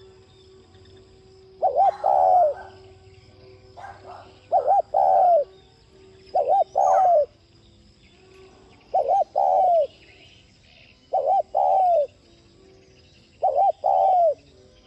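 Spotted dove cooing: six loud phrases about two seconds apart, each two quick short notes followed by a longer falling coo.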